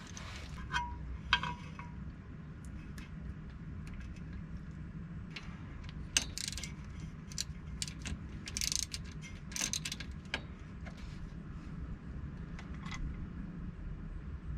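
Scattered metallic clicks and short ratcheting rasps of hand tools as the bolts on the front driveshaft-to-axle U-joint caps are run back in, over a steady low background hum.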